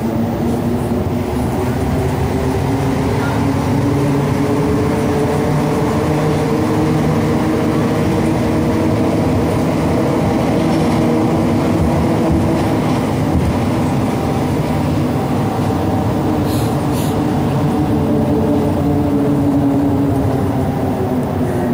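Montreal metro train running on rubber tyres, heard from inside the car: a steady loud rumble with a motor hum whose pitch rises slowly over the first half and falls back over the second, as the train gathers speed and then slows between stations.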